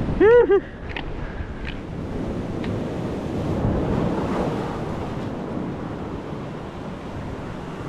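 Surf washing over a rocky shore with wind buffeting the microphone, a steady rushing noise. Right at the start a short voiced exclamation is the loudest sound.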